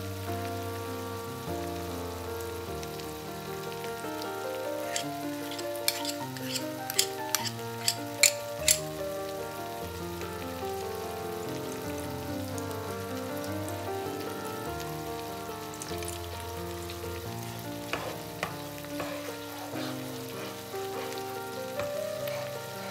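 Butter with honey, sweet chili sauce and soy sauce sizzling in a nonstick frying pan and being stirred with a spoon, under background music with a melody. A quick run of sharp clicks comes about six to nine seconds in.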